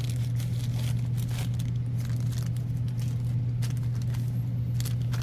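A steady low hum runs throughout, with light rustling, crinkling and small clicks from new rubber gaskets and their packaging being handled.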